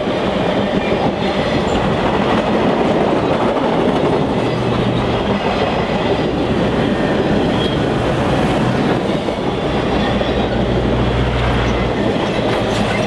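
Passenger cars of a train rolling past close by: a steady rushing rumble of steel wheels on the rails, with some clickety-clack, as the cars go by one after another.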